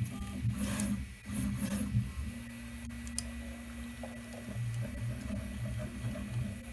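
Prusa i3 MK3 3D printer's stepper motors humming in steady tones that shift in pitch as the machine moves, over the hiss of its cooling fans, during the restart after a filament change. A few brief scratchy noises come in the first two seconds.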